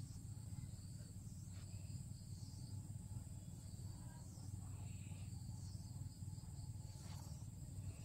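Outdoor ambience: insects trilling steadily at a high pitch over a low, steady rumble, with a few faint brief chirps.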